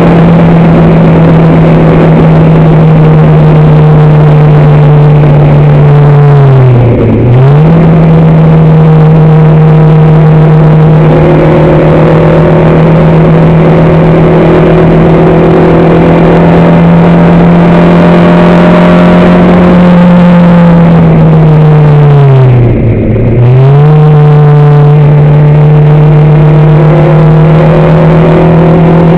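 Racing car engine heard on board, running loud at high, almost steady revs. The revs dip sharply and pick straight back up twice, about seven seconds in and again near twenty-three seconds.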